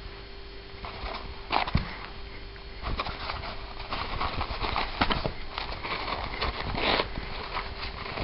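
Paper towel roll rustling and scratching as a cat claws and bites at it, in irregular scratchy rustles that come thicker from about three seconds in.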